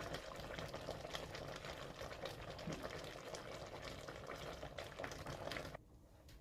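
Faint bubbling of a pot of vegetable soup simmering, a fine crackle of popping bubbles that cuts off near the end.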